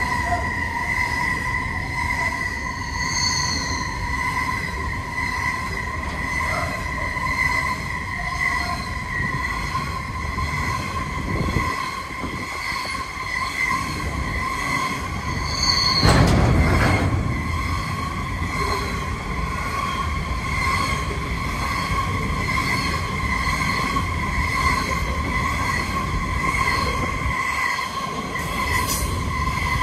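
Coal train hopper wagons rolling steadily past with a continuous high-pitched wheel squeal over the low rumble of wheels on the rails. A louder clatter about 16 seconds in.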